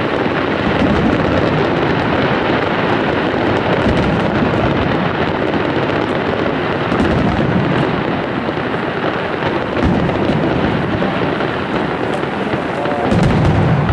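Fireworks display with many shells bursting in quick succession, merging into a continuous rumble with crackling throughout.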